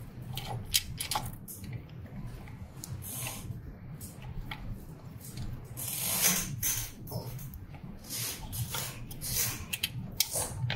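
Hands working inside a UV printer's print-head carriage, handling plastic ink dampers, tubing and a flat ribbon cable. Scattered small clicks and short rustles and crinkles, with a louder rustle about six seconds in and several more near the end, over a steady low hum.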